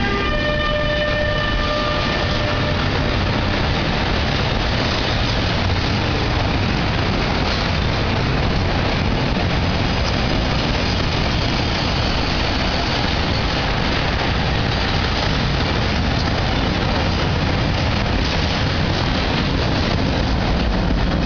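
Freight train of loaded car-carrier wagons rolling past at close range: a steady rumble and rattle of steel wheels on rails, with sharper clicks near the end. In the first couple of seconds the last of the passing locomotive's horn fades out, dropping in pitch.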